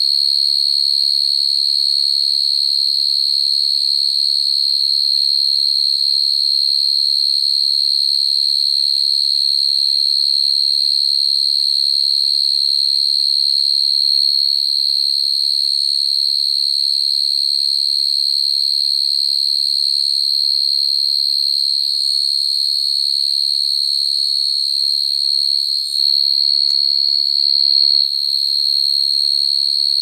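A male cricket's calling song to attract females: a continuous, steady, high-pitched trill with no breaks, wavering slightly near the end.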